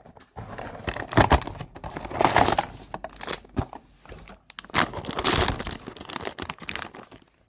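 Hands opening a cardboard blind box and pulling the figure out of its crinkly plastic wrapping: tearing, rustling and crinkling with a few sharp clicks.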